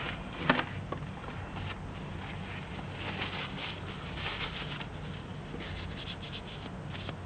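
A sharp knock about half a second in, then soft rustling and rubbing of toilet tissue against an HP 95 tri-colour ink cartridge as ink is wiped off it after priming.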